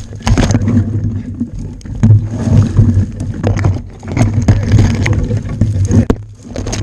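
Someone pushing through thick brush on foot: branches and twigs scraping, snapping and rustling close to the microphone, with steady crashing and rumbling handling noise.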